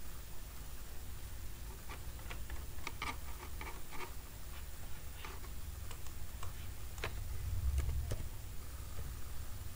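Irregular light clicks from typing and clicking at a computer: a quick run of them about two to four seconds in, then single clicks, over a steady low hum.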